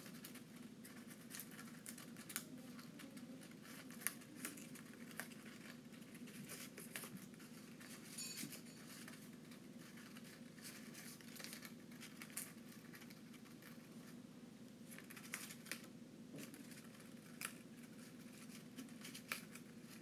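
A lutino cockatiel chewing and tearing at a colored paper flower with its beak: faint, irregular crisp snips and crinkles of paper.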